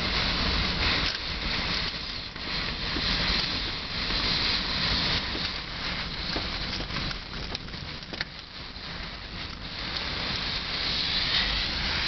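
Blizzard wind gusting, a low rumbling buffet on the microphone under a hiss of wind-driven snow, rising and falling from gust to gust.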